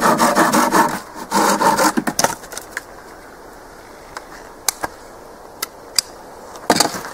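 Hand saw cutting through a thin wooden stick with quick back-and-forth strokes, stopping about two seconds in as the pin is cut off. After that come a few light wooden clicks and taps, with one louder knock near the end.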